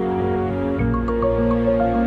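Soft, sustained instrumental music; a deeper bass chord comes in just under a second in, with a few light high notes on top.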